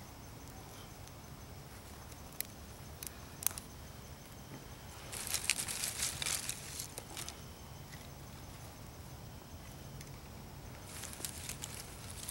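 Young campfire of dry twigs and kindling crackling: a few sharp pops in the first few seconds, then two spells of dense crackling, about five seconds in and again near the end, as small sticks are fed on and broken.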